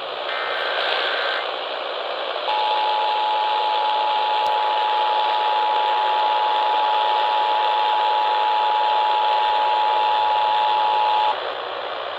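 Emergency Alert System broadcast over AM radio static: the last short bursts of the digital header tones, then the two-tone EAS attention signal (853 and 960 Hz together) starts about two and a half seconds in and holds steady for about nine seconds before cutting off. It signals an emergency alert, here a severe thunderstorm warning.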